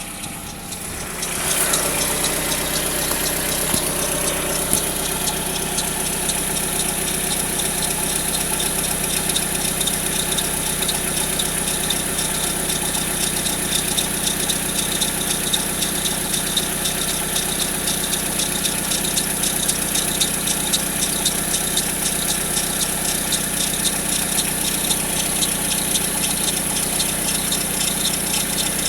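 Peugeot 407 engine idling cold with a fast, even ticking rattle over the engine note; the level comes up about a second and a half in, then holds steady. The owner hears this noise only with a cold engine since the timing belt was changed, and it goes away after two to three minutes.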